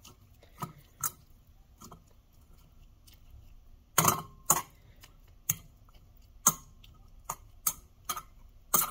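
Metal spoon clinking and tapping against a stainless steel canning funnel and jar as marinated eggplant is pressed down into the jar to push out air bubbles. About ten irregular clicks, the loudest about four seconds in with a short metallic ring.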